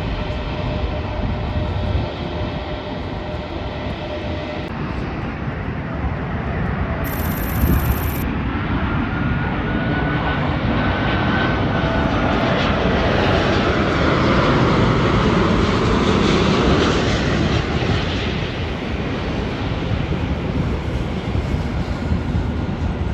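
Airbus A350-900's Rolls-Royce Trent XWB engines as it flies past on approach to land: a jet rush with a gliding whine that builds, is loudest about two-thirds of the way through, then eases off. The first few seconds hold the steady whine of another jet before a cut.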